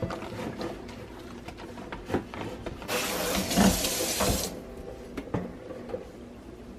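Kitchen tap running for about a second and a half, in the middle of scattered light knocks and clatters of kitchen things being handled.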